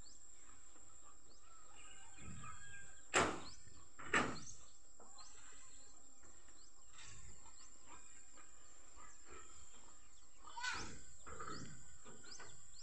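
Rural outdoor ambience: birds chirping over a steady high-pitched whine, broken by two sharp knocks about three and four seconds in and a weaker one near the end.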